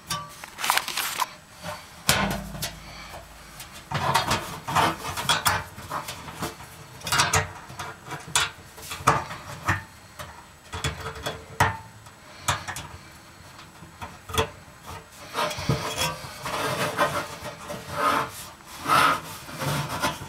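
Irregular scraping, rubbing and clicking as fingers work an oven bake element's wires and push-on terminals against the oven's metal back wall, in uneven bursts with short knocks between.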